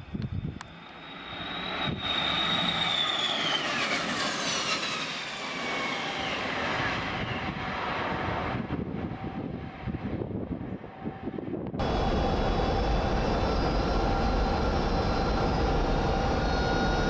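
Airbus A310 jet airliner making a fast low pass: the engine noise swells, and its high whine falls in pitch as it goes by, then dies away. About twelve seconds in, the sound cuts abruptly to a steady, loud jet noise with steady tones.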